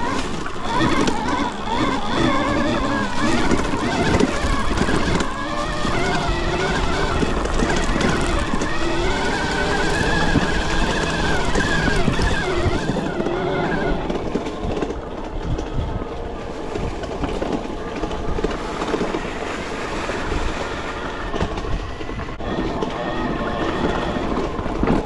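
Arctic Leopard electric e-bike's motor whining while riding off road, its pitch rising and falling with speed, over a steady rumble from the ride.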